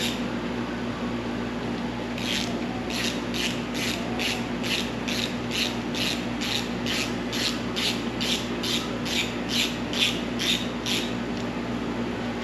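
Rhythmic back-and-forth rubbing by hand, like sanding or scrubbing a workpiece, at about two strokes a second. It starts about two seconds in and keeps an even pace, over a steady low hum.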